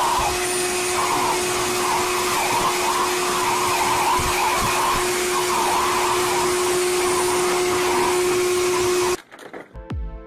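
Electric blow dryer running steadily on a dog: a constant loud whoosh of air with a steady hum, which cuts off suddenly about nine seconds in.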